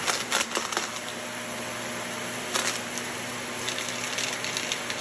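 Shark upright vacuum cleaner running steadily on carpet, with clusters of sharp clicks and crackles as gritty debris is sucked up: a flurry near the start, one around two and a half seconds in, and another run near the end.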